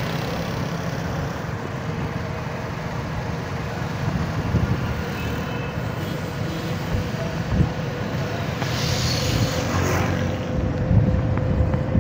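Busy city street traffic: cars and motorcycles running and passing close by, a continuous rumble with a faint steady tone underneath and a brief hiss about nine seconds in.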